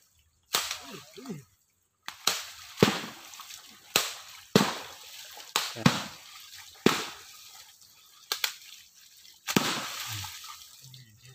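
Long poles slapping the surface of a shallow pond, about a dozen sharp splashing smacks at an uneven pace: the water is being beaten to herd fish toward a waiting net.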